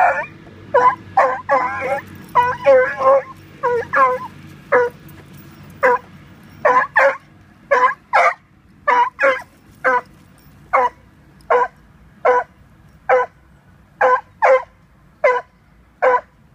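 Small wire-haired dog barking excitedly at a squirrel: a long run of short, high barks, about one a second, some in quick pairs, with denser, drawn-out yelping barks in the first few seconds.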